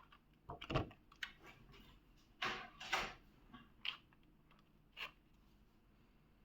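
Plastic clicks and knocks from keyboard keycaps being handled and pressed, about six irregular sharp taps in the first five seconds, then quiet.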